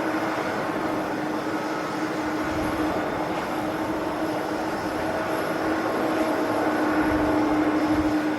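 Jet airliner engines running at a distance: a steady noise with a constant hum, growing slightly louder near the end.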